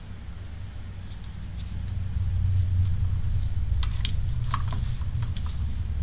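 A low rumble that swells a couple of seconds in and then eases. About four seconds in comes a quick cluster of small clicks, as plastic jumper-wire connectors are handled and pushed onto a circuit board's header pins.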